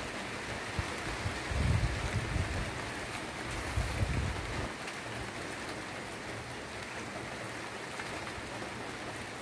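Steady hiss of rain falling at night, with two brief low rumbles, about a second and a half and about four seconds in.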